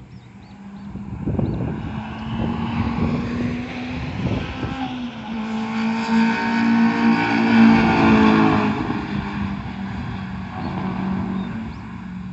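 Car engine held at steady high revs, growing louder to a peak about two-thirds of the way through and then fading, like a car passing at speed. Wind thumps on the microphone in the first few seconds.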